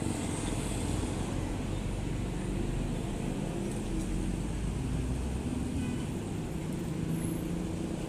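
Mercedes-Benz OH 1626 coach's rear-mounted diesel engine running as the bus pulls off and drives past: a low, steady rumble, with light road traffic around it.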